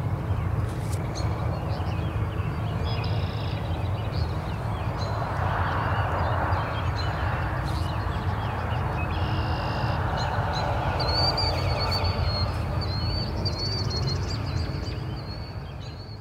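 Outdoor evening ambience: small birds chirping and trilling over a steady low rumble, the chirping busiest in the second half. Everything fades out near the end.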